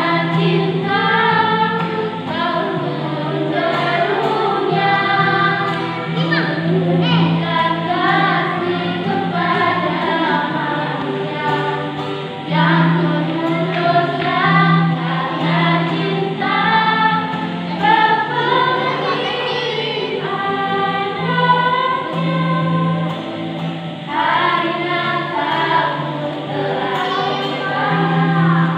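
A small group of women singing together, accompanied by an acoustic guitar.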